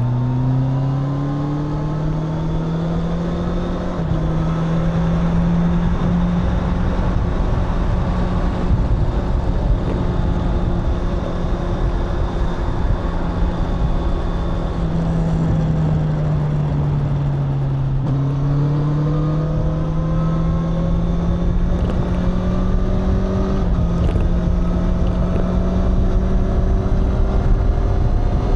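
Honda CBR650R's inline-four engine and exhaust under way. The revs climb at first, then level off after a gear change about four seconds in. They fall away in the middle, then climb again, with another gear change near the end. A steady rushing noise runs underneath.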